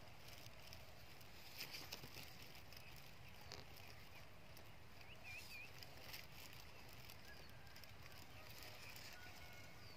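Near silence: faint outdoor ambience, with a few faint clicks near two seconds in and a brief faint chirp about five seconds in.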